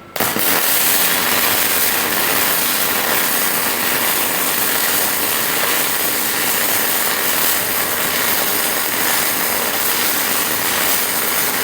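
Robotic arc welding: the welding arc strikes suddenly and then runs as a steady, loud crackling hiss.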